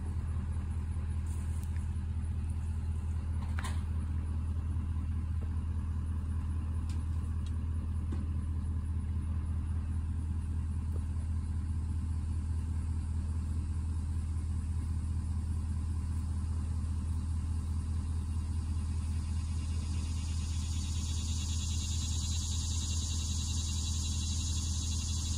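Vehicle engine running steadily with an even low hum. A single sharp click comes about three and a half seconds in, and a faint high hiss builds near the end.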